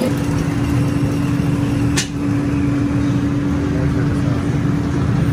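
A machine motor running steadily with a constant hum, and a single sharp click about two seconds in.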